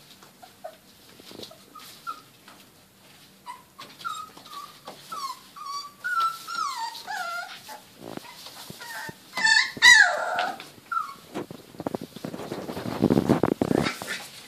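28-day-old border collie puppies squeaking and whimpering in play, a string of short rising and falling squeaks with one louder falling yelp about ten seconds in. Near the end this gives way to a scuffle of rustling through shredded paper bedding.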